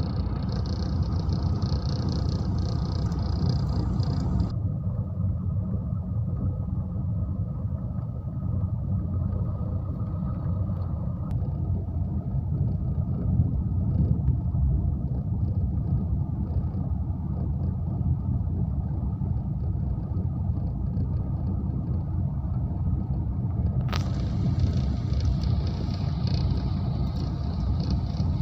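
Car driving on a rough gravel road, heard inside the cabin: a steady low rumble of tyres and engine. A higher hiss over it cuts off suddenly about four seconds in and comes back near the end.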